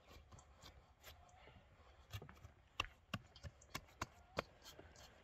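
Hands kneading risen bread dough in a metal mixing bowl: faint handling noise with a scatter of sharp taps and clicks, bunched about two to four and a half seconds in.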